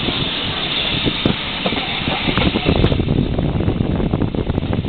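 Railway carriage running along the track, heard from an open carriage window: a steady rush of running and wind noise with scattered clanks and knocks from the wheels and couplings, the rumble growing heavier about halfway through.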